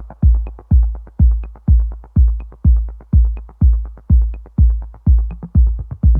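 Electronic dance music with a steady kick drum pounding about twice a second, and a faint high tick on alternate beats.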